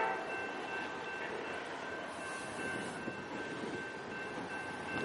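A diesel freight train's horn cuts off right at the start, leaving the steady rumble and wheel noise of the train coming on in the distance, with a faint thin high tone held through it.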